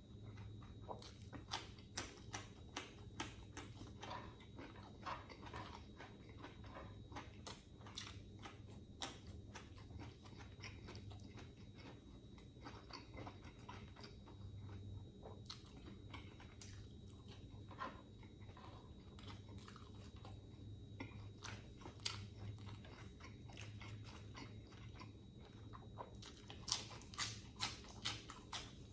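Close-up eating: a person chewing and biting into mouthfuls of grilled chicken with crisp raw lettuce and cucumber, with many short crunchy clicks and a quick flurry of them near the end, over a faint steady low hum.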